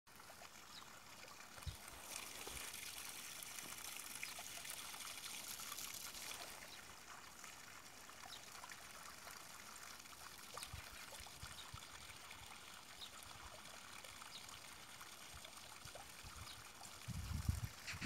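Faint, steady trickle of running water, a little fuller in the first few seconds. A few loud low thumps come near the end.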